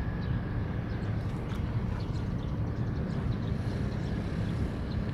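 Steady low rumble aboard a small motor boat under way, its engine and the wind on the water, with scattered faint ticks.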